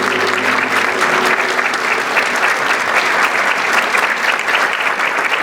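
Audience applauding: dense, steady clapping, with the last of the music fading out in the first second or so.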